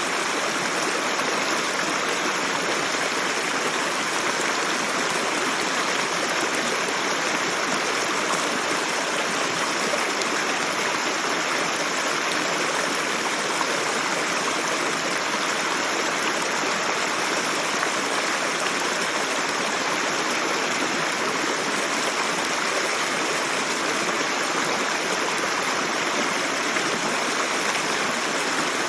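Creek water spilling over small built rock waterfalls: a steady, even rushing and splashing.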